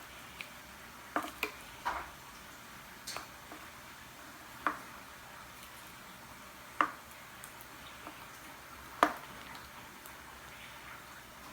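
A spoon stirring slime in a pot: a few irregular light knocks and clicks of the spoon against the pot, with soft squishing of the slime.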